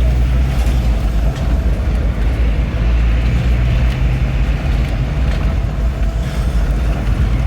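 Car driving along a cobblestone street: a steady, loud low rumble of engine and tyres.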